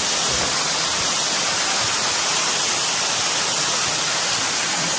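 Small waterfall pouring into a pool: a steady, loud rushing hiss of falling water.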